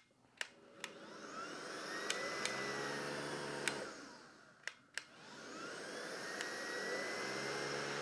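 Miele Triflex HX2 cordless stick vacuum's motor switched on with clicks of its slide switch, spinning up with a rising whine and running. About halfway through it is clicked off and winds down, then is clicked on and spins up again.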